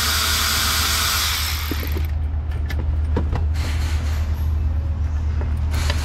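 A loud steady hiss that cuts off about two seconds in, over a steady low hum; after it, a few light knocks and clunks as the valve cover is worked loose and lifted off a 6.0 L LQ4 V8.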